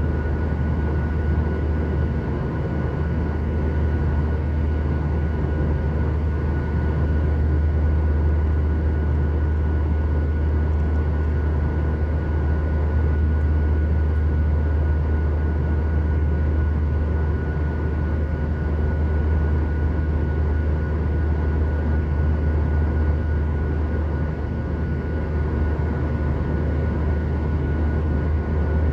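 Steady cabin noise of a Boeing 737 in its climb, heard from a window seat beside the engine: a deep, even jet engine and airflow drone with a thin steady high tone over it.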